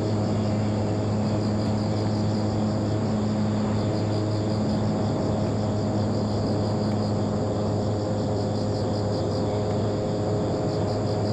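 Electric motor and propeller of an FT Simple Cub RC model airplane running at steady throttle in flight, an even drone with a steady pitch.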